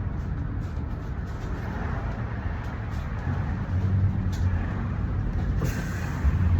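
Bus running with a steady low engine and road rumble, a few faint clicks, and a short hiss about five and a half seconds in.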